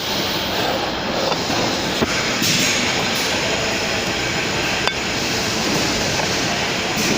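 Fabric welding machine running: a steady mechanical noise with a few sharp clicks.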